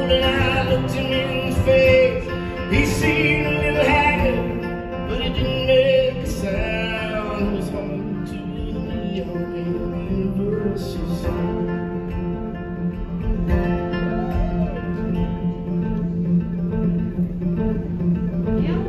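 Acoustic steel-string guitar played live, ending a country-folk song, with singing in the first several seconds. The playing settles into held, ringing notes over the second half.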